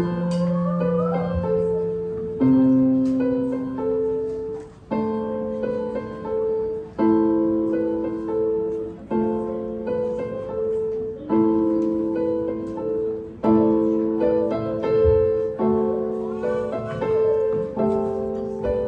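Electronic keyboard played in a piano voice: held chords struck about every two seconds, with a simple repeating melody on top.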